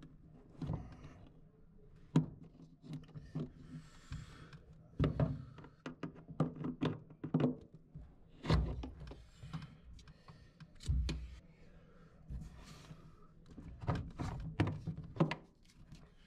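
Irregular knocks, clicks and scrapes of a 12 mm socket and needle-nose pliers working a plastic shock-absorber peg out of its mount on a front-loading washer's frame.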